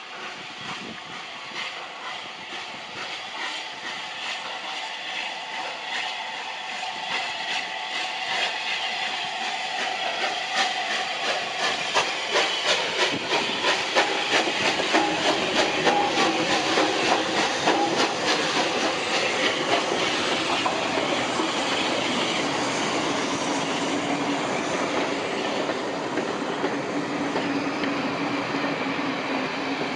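Bulleid Battle of Britain class steam locomotive 34067 Tangmere, a three-cylinder Pacific, approaching and passing with its train, growing steadily louder. A regular beat of exhaust and wheels comes through strongest in the middle, over a hiss. Near the end the carriages roll past.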